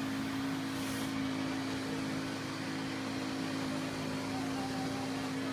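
Bus engine idling with a steady hum.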